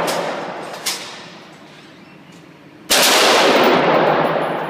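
Gunfire from an FN SCAR 16 5.56 mm rifle set to full auto. A loud volley starts sharply about three seconds in and echoes as it fades in the indoor range. The fading echo of the previous volley fills the first second, with one short sharp crack about a second in.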